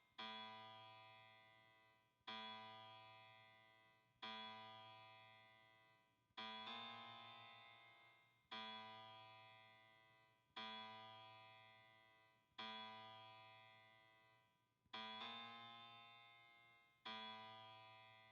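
Quiet background music of keyboard chords, one struck about every two seconds and each left to fade away before the next.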